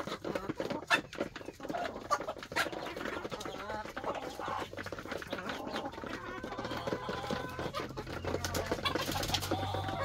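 A flock of hens pecking feed from a plastic dish and the ground: many quick sharp taps of beaks, densest early on, with soft clucking among them.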